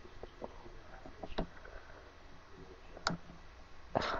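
Handling noise from a gooseneck webcam being bent and repositioned by hand: a few scattered clicks and knocks, then a louder rustle about four seconds in.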